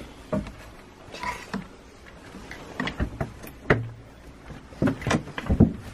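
Scattered clicks and knocks as hands press the push-button and work the panel of a Eurostar train's passenger door, which stays locked with no power. The knocks come thicker toward the end.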